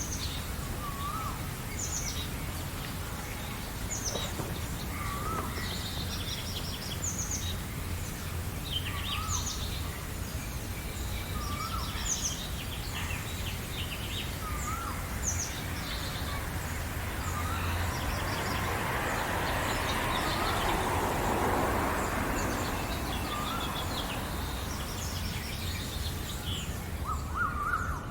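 Several birds singing in a spring morning chorus: quick high chirps overlap with a shorter, lower call that repeats about every two seconds, over a steady low background rumble. A rush of hiss swells and fades in the middle.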